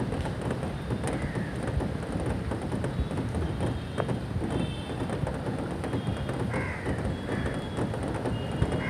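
Birds calling over a steady hiss of rain: a few short, harsh arched calls, the first about a second in and three more near the end, with thin high whistled notes between them.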